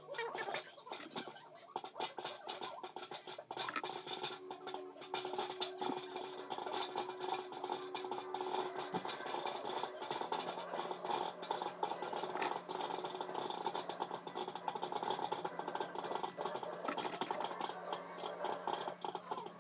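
Irregular small clicks, taps and scratching rustles of a comb and hair clips being handled while hair is parted and braided.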